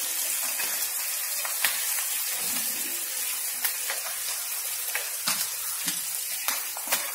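Green chillies, curry leaves and garlic frying in hot oil in a pan: a steady sizzling hiss with scattered sharp pops and crackles.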